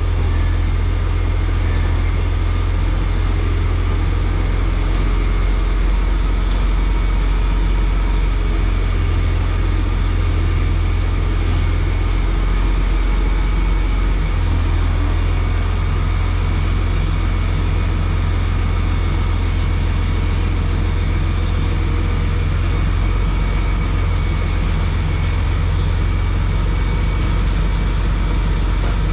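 Tractor engine running steadily, a low even drone, as it pulls a plow slowly along the floor.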